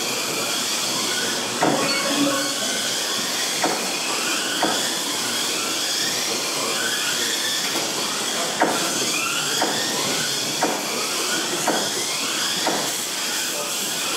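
Several Kyosho Mini-Z 1:28-scale electric RC cars racing, their small electric motors whining and rising in pitch over and over as they accelerate, with short sharp clicks about once a second through the middle and later part.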